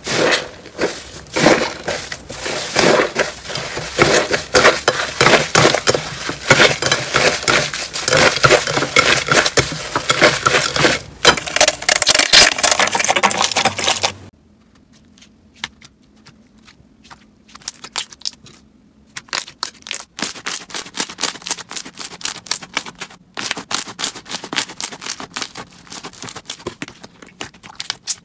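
Hands pressing and kneading crunchy 'tofu dregs' slime, a dense run of loud crackles and crunches. About fourteen seconds in it cuts to a softer lump of purple slime squeezed by hand, much quieter, with scattered clicks and pops that grow busier toward the end.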